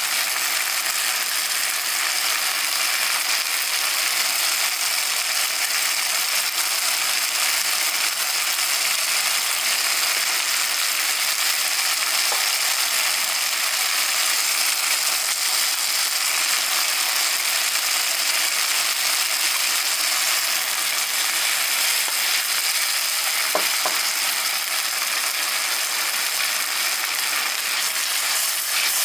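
Chunks of eggplant, potato and okra sizzling steadily in oil in a nonstick frying pan, with one light knock about three-quarters of the way through.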